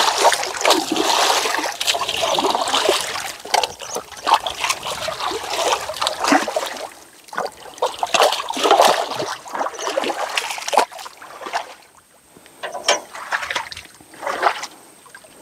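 Muddy water splashing and sloshing in irregular bursts as a person wades and heaves at a bogged-down two-wheel hand tractor, with a quieter spell about twelve seconds in.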